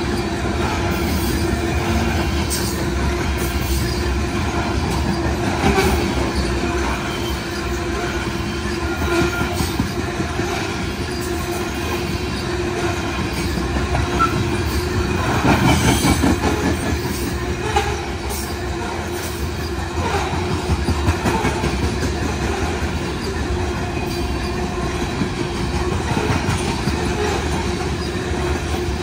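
Covered hopper cars of a BNSF freight grain train rolling past, steel wheels clattering over the rail joints, with a steady whining tone underneath. The clatter grows louder for a couple of seconds about halfway through.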